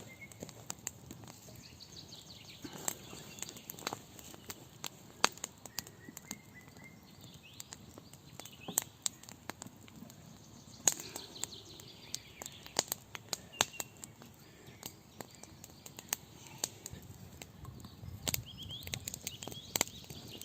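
Woodland birds chirping now and then over irregular sharp clicks and snaps, some louder than others.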